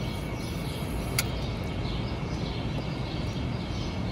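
Steady outdoor background: a low rumble with faint, repeated high chirps, and a single sharp click about a second in.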